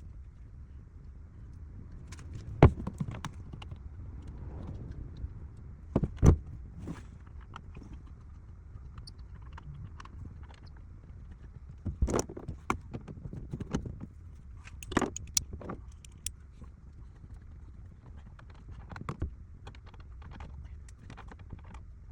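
Scattered clicks, knocks and rattles of parts and tools being handled, over a low steady hum; the loudest knocks come about two and six seconds in.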